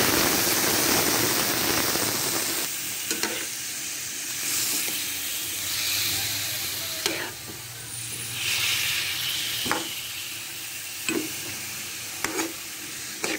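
Diced pork sizzling in hot oil in a metal pan, just added to the oil, the sizzle loudest at first and slowly easing. A metal spoon stirring, scraping and clinking against the pan several times.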